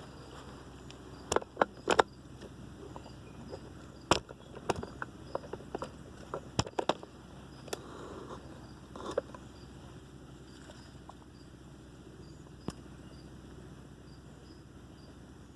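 Handling noise: a scatter of sharp clicks and light knocks over the first nine seconds or so, then only a steady low background hum with one more click near the end.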